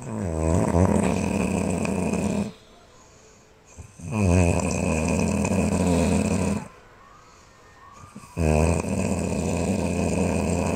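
A person snoring loudly: three long, low, rattling snores, each lasting over two seconds, with quiet breaths between them.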